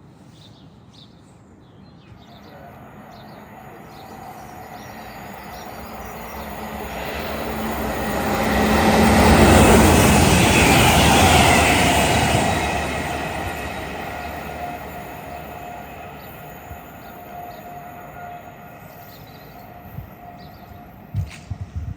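A train passing: the rumble builds over several seconds, peaks about halfway through and fades away, with a steady whine running through it.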